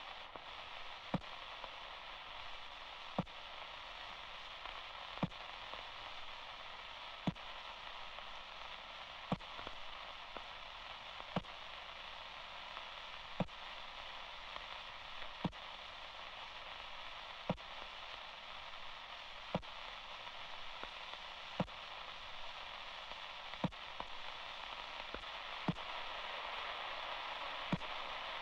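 Old-radio-style static: a steady, thin hiss with a sharp click about every two seconds, like a loop.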